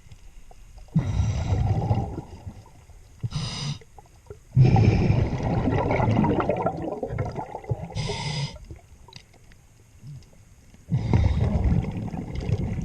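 Scuba diver breathing through a regulator underwater: two short hissing inhalations, with long bubbling exhalations before, between and after.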